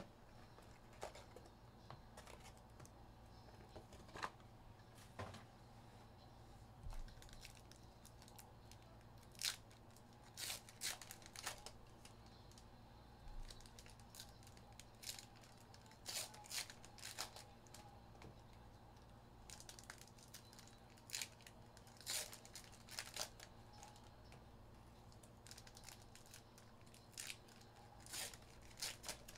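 Faint tearing and crinkling of wrapper packaging as a sealed box of Upper Deck Trilogy hockey cards and its packs are opened by hand, in scattered short bursts.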